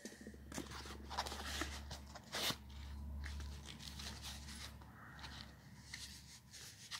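Handling noise as a large flashlight is worked into its holster: scattered clicks, scrapes and rustles, with a low rumble through the first half.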